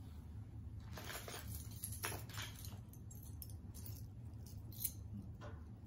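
Faint, scattered clinks and jingles of metal costume jewelry being handled on a table, over a low steady hum.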